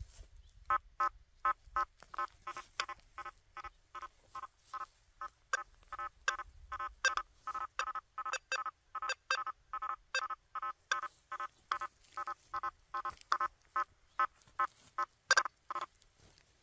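Quest V80 metal detector with a 9-inch coil giving a long series of short, same-pitched target beeps, about three a second, as the coil is swept over a nailboard test. One beep near the end is louder.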